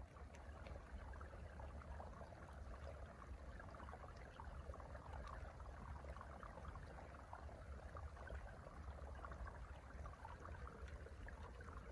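Faint, steady snowstorm ambience: a low wind rumble with a soft, fine crackling hiss.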